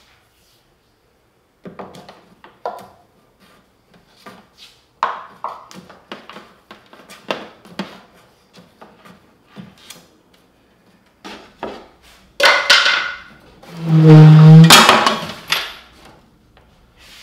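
Scattered clicks and knocks of hand tools and cable being handled. Near the end comes a loud creak with a steady pitch as the plywood flip-top cart is swung over on its black iron pipe pivot.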